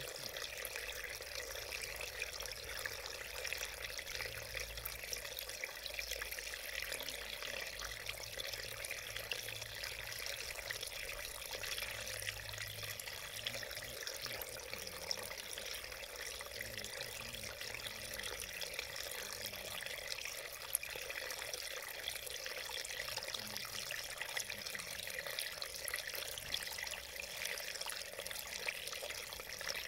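Small mountain stream running over rocks, water splashing in a shallow cascade with a steady, even rush.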